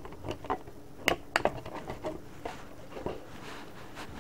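Faint handling sounds from taking a Pokémon card tin's contents out: scattered light clicks and rustles of the promo card and its plastic packaging, the clearest about a second in.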